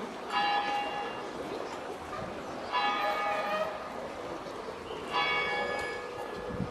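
A large church bell strikes three times, about two and a half seconds apart, each stroke ringing on and slowly fading.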